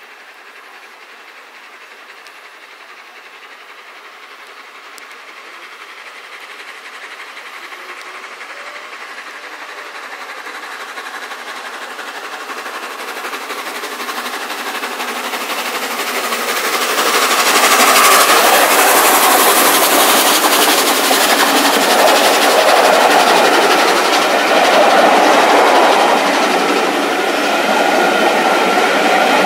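Peppercorn A1 Pacific steam locomotive 60163 Tornado approaching at speed, growing steadily louder for about eighteen seconds. It then passes close by, and the rushing noise of its train of coaches stays loud.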